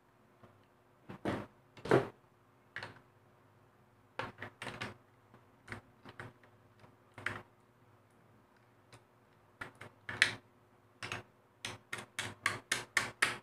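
Plastic clicks and knocks from handling an opened-up mini sewing machine and working on its parts with a screwdriver, scattered at first, then a quick run of about five clicks a second near the end.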